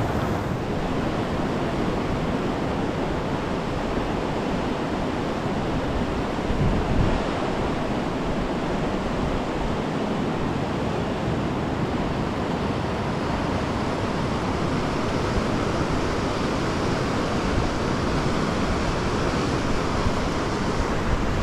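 Steady, loud rush of a fast mountain river's whitewater rapids close by.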